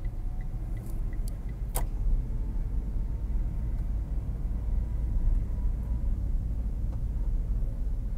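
Steady low rumble of a car's engine and tyres heard from inside the cabin while driving slowly, with one sharp click about two seconds in.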